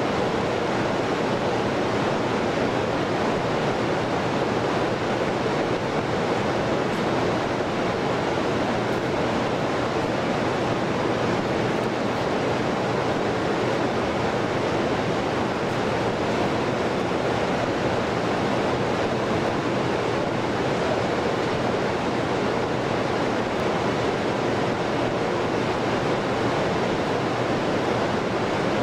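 Steady, even rushing noise with a faint low hum and no distinct events: the constant background roar of a large assembly hall.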